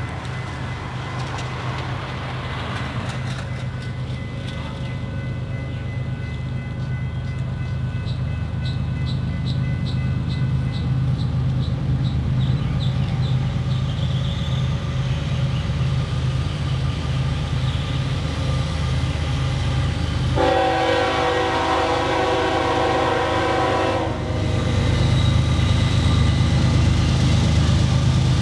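Approaching diesel freight train: a steady low locomotive rumble that slowly grows louder, with one long horn blast lasting about three and a half seconds some twenty seconds in.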